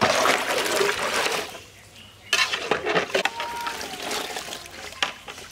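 Water caltrops being washed in a large aluminium pot of water: the water splashes and sloshes as a metal ladle stirs and scoops them, with short knocks and clinks of the ladle. The splashing eases off for a moment a little after a second in, then picks up again.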